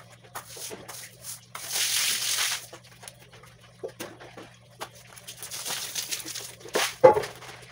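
Water splashing and a broom swishing across a wet floor, loudest about two seconds in and again around five to six seconds, with a short loud cry near the end.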